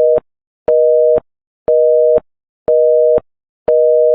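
North American telephone busy signal: a steady two-note tone beeping on and off about once a second, with a faint click at the start and end of each beep. The called line is busy and the call is not going through.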